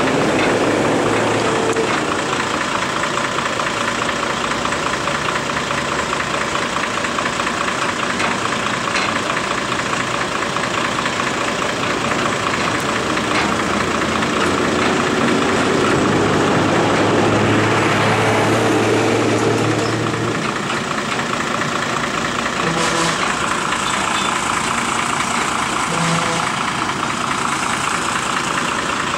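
Heavy truck's diesel engine idling, then revving up for a few seconds in the middle and dropping back to idle.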